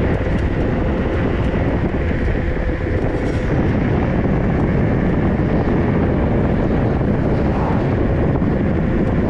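Steady rushing noise of wind over the microphone while riding a 3000 W 48 V electric dirt bike, with a faint steady whine underneath.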